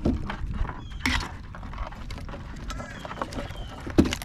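Wind rumbling on the microphone, with a few sharp knocks and clatters, the loudest about four seconds in.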